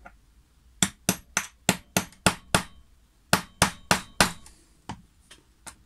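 Light hammer taps on the end of a small steel socket, pressing a tight new 684ZZ (9×4×4 mm) bearing into a brushless drone motor. There is a quick run of about seven sharp metallic taps, a short pause, four more taps, and then a few lighter ones near the end.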